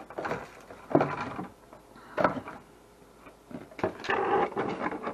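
Hands handling a plastic RC truck body shell and items on a workbench: irregular knocks and taps, with a short stretch of rustling about four seconds in.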